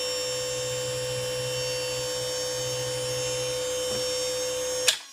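Small 6-volt motor belt-driving a homemade generator rotor with hot-glued ferrite pieces at high speed, a steady whine. Near the end a sharp crack as the rotor comes apart and pieces fly off, and the running sound cuts off suddenly.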